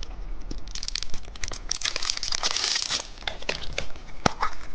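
Crinkling and tearing of plastic candy packaging being opened by hand, with many small clicks, densest from about two to three seconds in, and one sharp snap a little after four seconds.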